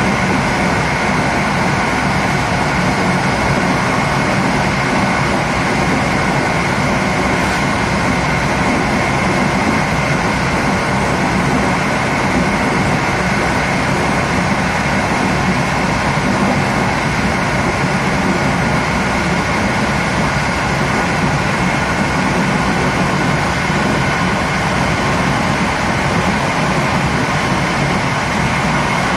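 Steady running noise of a passenger train at speed, heard from inside its last coach: an even rumble of wheels on rail with a few faint steady tones above it and no distinct rail-joint clicks.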